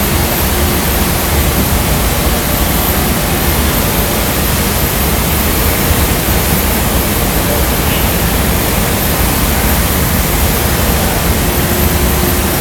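Steady loud roar of a glassworks floor: furnace burners and large cooling fans running without a break.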